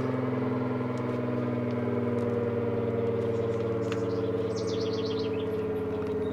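ACA Allertor 125 outdoor warning siren sounding its steady alert, a sustained chord of several tones that sags slightly in pitch. About four and a half seconds in, a bird gives a quick run of high chirps over it.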